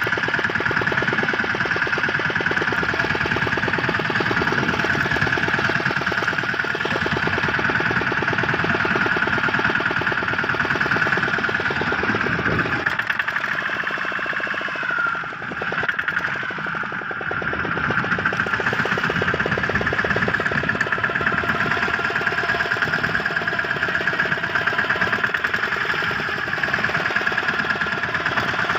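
Fishing boat's engine running steadily with a fast, even beat; it eases off for a few seconds about halfway through, then picks up again.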